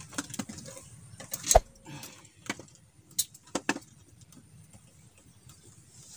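Fishing tackle being handled: a run of sharp clicks and knocks, the loudest about one and a half seconds in, dying away after about four seconds.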